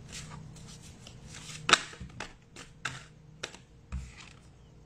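A deck of tarot cards being shuffled by hand: an irregular run of crisp card snaps and clicks, the sharpest about two seconds in.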